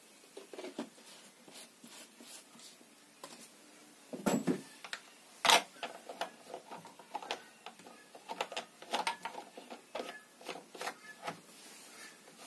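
Handling noise at a Stihl MS 170 chainsaw after it has been filled with chain oil: scattered plastic clicks and knocks as the oil bottle is set aside and hands work the saw's tank cap and body. The loudest is a sharp knock about five and a half seconds in, followed by a run of small clicks.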